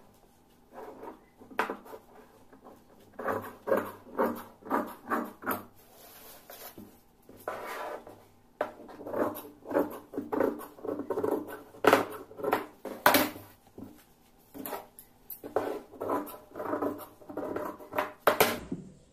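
Large tailoring scissors cutting through double-folded dress fabric: runs of quick snips as the blades close, about two to three a second, a few of them sharp, loud clicks.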